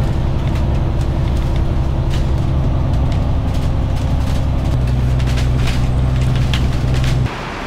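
Bus engine running under way, heard from inside the passenger cabin: a steady low drone with light rattles from the interior, the engine note changing about two-thirds of the way through. The sound cuts off suddenly near the end.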